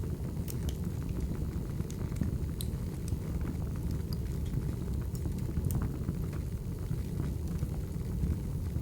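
Crackling wood fire: a steady low rush of flames with scattered sharp pops and crackles.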